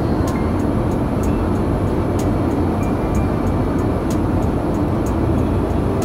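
Steady cabin noise of an airliner in cruise: the deep, even rush of airflow and jet engines heard from inside the passenger cabin.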